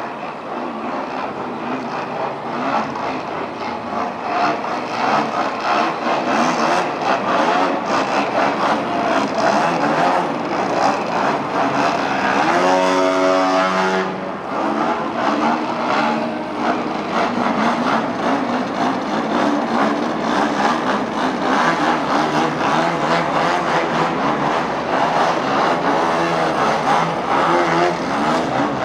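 Engine and propeller of a large radio-controlled aerobatic model airplane running hard in flight, its note rising and falling with the throttle. About halfway through the note climbs clearly.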